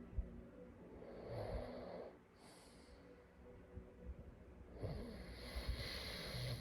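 A sleeping person snoring faintly: a rasping breath about a second in, a short hiss of breath around two and a half seconds, then a longer rasping breath from about five seconds in.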